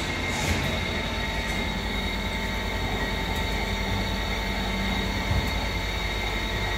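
Ikegai TUR-26 CNC turning lathe running: a steady mechanical hum with several high whining tones held at one pitch, and a few faint ticks.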